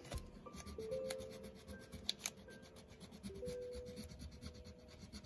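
Coloured pencil rubbing on paper in quick back-and-forth shading strokes, a dry scratchy scraping, with a couple of sharp ticks about two seconds in.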